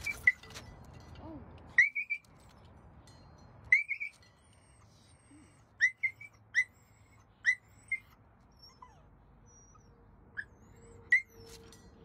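An animal's short, high-pitched chirping calls, each a quick rising note, coming singly and in runs of two or three with pauses of a second or more between.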